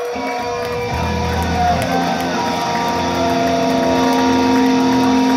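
Live rock band's amplified electric guitar holding a sustained droning chord.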